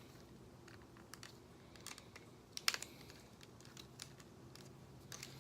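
Faint, scattered clicks of a plastic Transformers figure's parts being handled and moved during transformation, the loudest a quick pair of clicks just under three seconds in.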